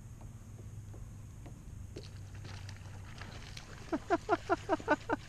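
Baitcasting reel's drag giving out line in a quick run of short, loud pulses, about seven a second, starting near the end, as a hooked fish pulls against it; faint scattered ticks before that.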